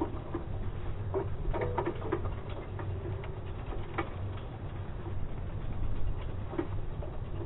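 Bicycle rolling over paving: a steady low rumble with irregular clicks and rattles from the bike and its mounted camera.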